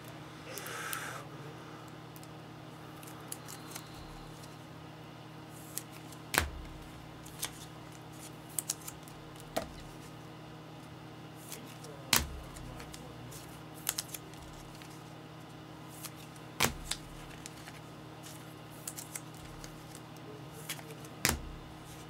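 Trading cards and plastic card sleeves being handled on a tabletop: scattered light clicks and rustles, with a sharper tap about every four and a half seconds, over a steady low hum.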